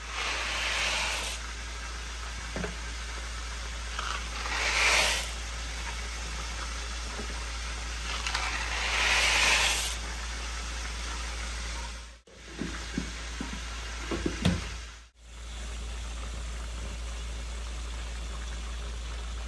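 Pot of water at a steaming boil on a stovetop, giving a steady hiss that swells louder three times in the first ten seconds, with a few light clunks about two-thirds through.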